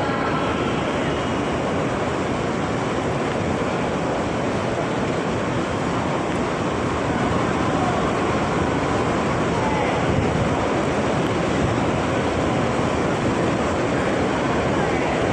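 Steady rushing, rumbling noise of a moving vehicle, heard from inside it, unbroken throughout.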